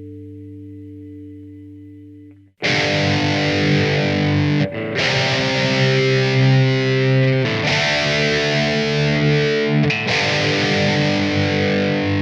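Distorted electric guitar playing chords. A held chord fades away, then about two and a half seconds in, loud distorted chords start and ring out, changing every two and a half to three seconds.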